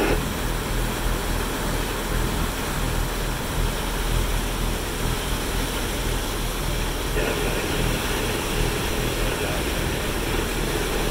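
Boat engine running steadily at trolling speed, with the churning water of the wake rushing behind the stern.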